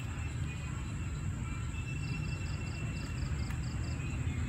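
A steady low rumble runs under a cricket chirping high in short trills of four or five quick pulses, twice in the second half.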